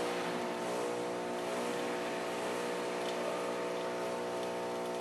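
Saeco Lirika espresso machine running its start-up rinse: its vibration pump hums steadily at one unchanging pitch, pushing the cleaning water through the coffee spout, with a few faint ticks.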